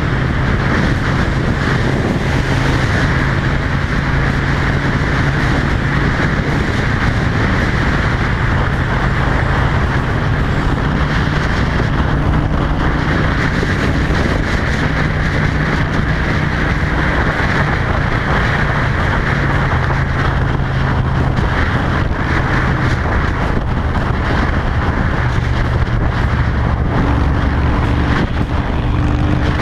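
Honda Shadow 750's V-twin engine running through its new, loud aftermarket exhaust with a fishtail tip, under way on the road. Its note shifts in pitch a few times as engine speed changes, with wind noise rushing over the microphone throughout.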